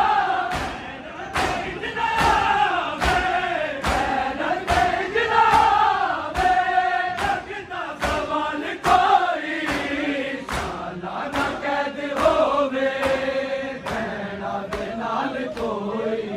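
Noha, a Shia lament for Muharram, chanted by men's voices in unison over the crowd's rhythmic matam, open-handed chest-beating slaps landing in a steady beat.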